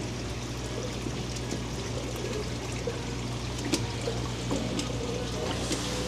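Aquarium filtration water trickling and splashing steadily into tanks, over a steady low hum of pumps.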